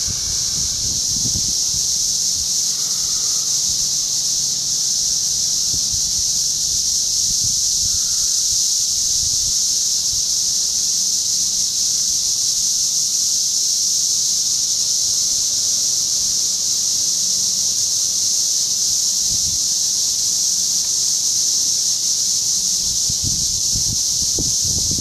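A loud, steady, high-pitched drone from a chorus of cicadas in the surrounding trees, running without a break. Low rumbles of wind on the microphone come and go, mostly near the start and the end.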